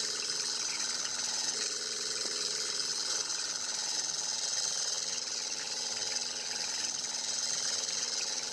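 Miniature model engine and water pump set running, a steady fast mechanical rattle and whir.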